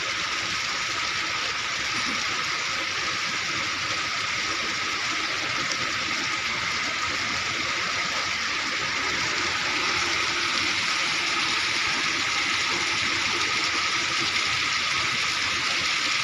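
Steady rush of running water, even and unbroken, with no separate splashes standing out.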